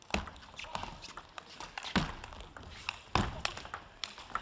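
Table tennis rally: a celluloid ball struck back and forth by rubber-faced rackets, with sharp hits about a second or two apart and lighter clicks of the ball bouncing on the table in between.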